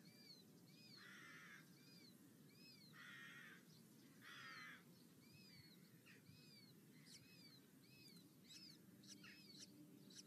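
Faint red-footed falcon calls: a steady series of short, high, arched notes about twice a second, with three harsh rasping calls in the first half and a few short sharp notes in the second half.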